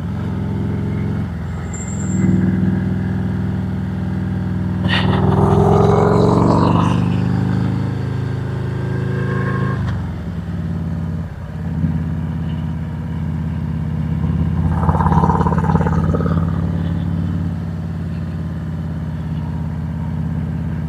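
Harley-Davidson Road Glide Special V-twin engine under way, rising in pitch as it accelerates over the first several seconds. It drops off sharply about ten seconds in as the throttle closes, then runs steady. A louder rush of noise comes twice, around five to seven seconds in and again around fifteen seconds.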